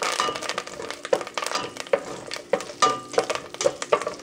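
Tempering of mustard seeds, urad dal, fennel and curry leaves sizzling and crackling in hot ghee and oil, with a wooden spoon stirring and knocking against the stainless steel pot in many short, irregular clicks.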